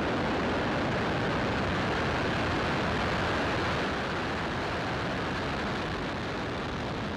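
Falcon 9 rocket lifting off, its nine Merlin 1D first-stage engines at full thrust: a loud, steady, dense exhaust roar with no pitch to it, easing slightly about four seconds in.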